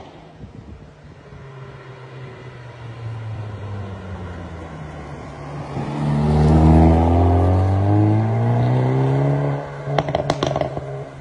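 Hyundai i30N's turbocharged 2.0-litre four-cylinder on its stock exhaust, running quietly at first, then revving hard with a rising pitch about six seconds in. As the throttle closes near the end, the exhaust gives a quick string of pops and bangs on the overrun.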